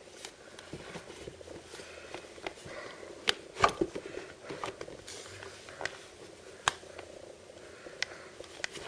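Hands handling and opening blind-bag packaging: plastic crinkling with several sharp clicks and taps, the loudest about three and a half seconds in.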